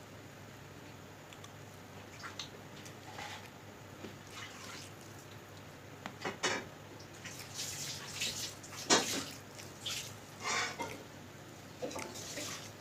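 Eating sounds from a khichdi mukbang: scattered short wet smacks and clicks, irregular and coming closer together after a few seconds, the loudest about nine seconds in.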